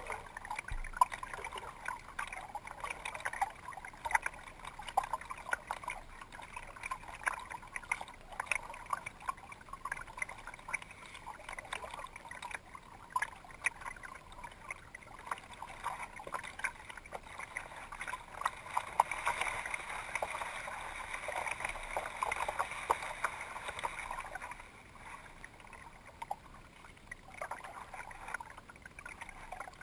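Kayak paddling on calm water: the paddle blades dipping in with small splashes and water trickling and dripping off them. The sound grows louder about two-thirds of the way through, then eases off.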